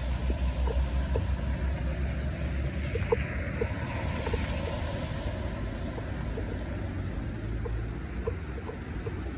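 Steady rushing of heavy rain and floodwater with wind buffeting the microphone, and a pickup truck driving through the flooded road, its tyres throwing up spray, the splashing swelling about three to five seconds in.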